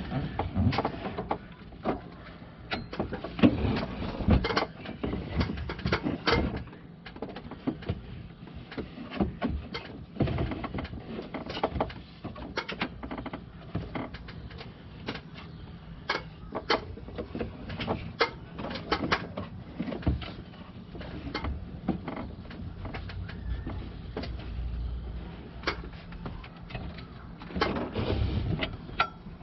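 Irregular clicks, taps and knocks of hands and tools working a serpentine belt onto the engine's pulleys and tensioner.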